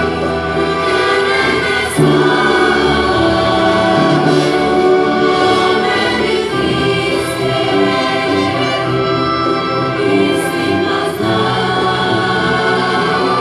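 Choir singing with a symphony orchestra in held chords, with a fresh loud entry about two seconds in.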